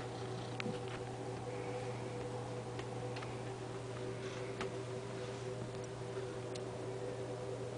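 Steady low hum with a few faint, scattered clicks and ticks.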